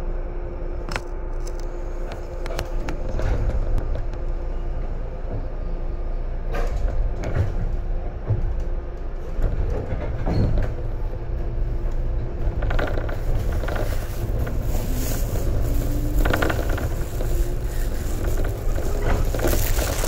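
JR 415 series electric train pulling out of a station and picking up speed, heard from inside the carriage. A steady hum at first, then a low rumble builds with repeated clacks of wheels over rail joints and points, and a motor whine rises in pitch as it accelerates.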